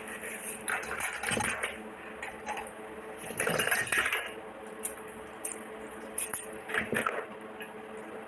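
Miniature stainless-steel toy kitchen utensils and pots clinking against each other in a few short clusters.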